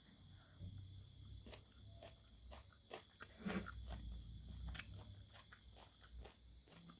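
Faint eating sounds, close up: a person chewing fried pork with small wet mouth clicks and one firmer bite or knock about halfway. A steady faint high-pitched whine runs underneath.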